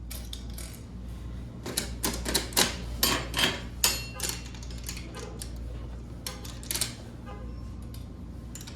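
Quarters being fed into a coin-operated vending machine: irregular metallic clicks and clinks of coins going through the coin mechanism, over a steady low hum.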